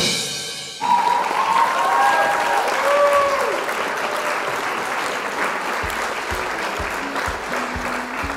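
A crowd applauding and cheering, with a few sliding whistle-like tones in the first few seconds; from about six seconds in, music with a regular low beat comes in under the applause.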